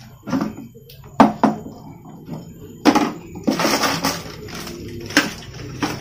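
Hollow plastic knocks and clatter from handling an empty plastic toilet cistern and its flush-valve fittings: a few sharp taps, then a stretch of scraping and rustling and another knock.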